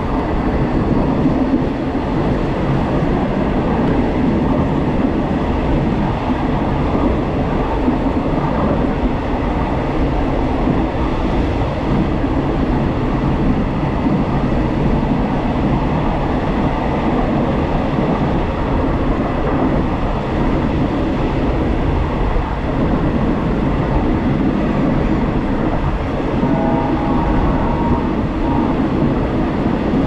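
Passenger train running at steady speed, heard from inside a carriage: a continuous rumble of wheels on rails.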